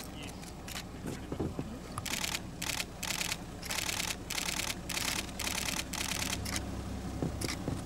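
Camera shutters firing in rapid bursts again and again, each burst a fraction of a second long and irregularly spaced, over a low steady hum.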